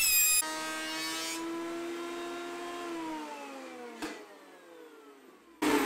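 Benchtop jointer's motor and cutterhead running free, then switched off and winding down in a falling whine. There is a single knock about four seconds in and a brief noise near the end.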